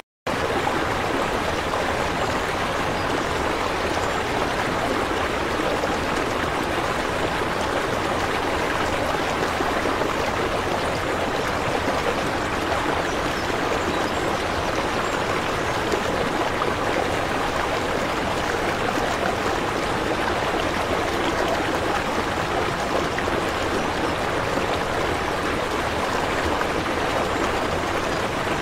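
Steady rush of running water from an aquarium's filter circulation, even and unbroken apart from a brief dropout at the very start.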